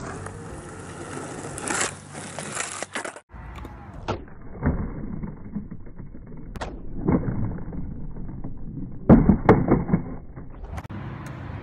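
Skateboard worked through freestyle tricks on concrete: wheels rolling and the deck and trucks knocking and slapping on the ground several times, with a loud run of clatter about nine seconds in.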